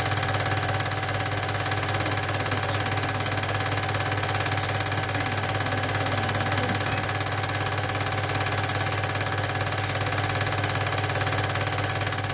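8 mm cine projector running: a steady mechanical whirr and hum with a fast, even flutter.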